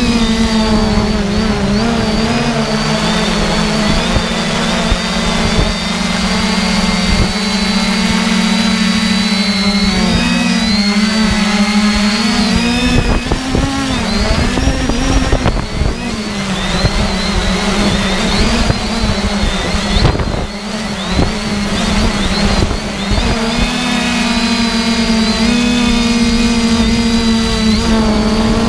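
Multirotor drone motors and propellers humming steadily at a high pitch, the pitch wavering and dipping a few times as the throttle changes, over an uneven low rumble of buffeting air.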